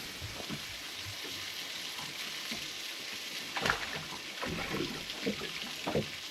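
Sausages sizzling as they fry in a pan: a steady high hiss with a few light clicks and knocks, one louder a little past halfway.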